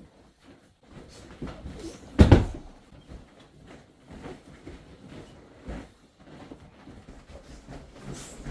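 Two people doing an unarmed martial-arts technique: a heavy thud of feet or a body hitting the floor about two seconds in, a lighter thud near the middle, and another heavy thud at the very end, with soft shuffling footsteps and clothing rustle between.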